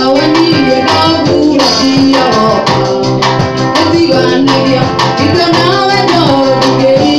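Mugithi band music: a woman singing into a microphone over electric guitars, with a steady beat and a shaker.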